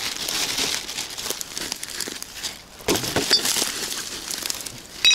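Thin plastic bag rustling and crinkling in the hand, mixed with crunching steps through dry reeds and grass.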